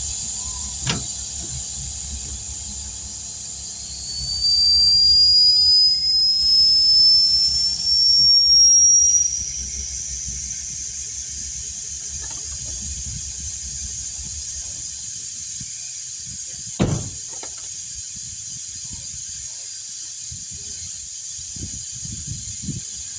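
Air hissing out of a freshly mounted pickup tire through its valve stem as it is deflated, with a louder whistle rising in pitch from about four to nine seconds in. A short knock comes near the middle.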